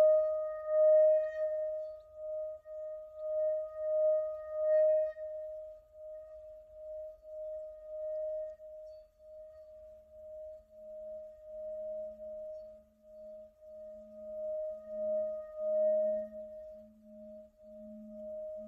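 Tibetan singing bowl being rubbed around its rim with a mallet, singing a steady ringing tone that swells and fades in a regular pulse. About halfway through, a deeper tone comes in beneath it and grows louder.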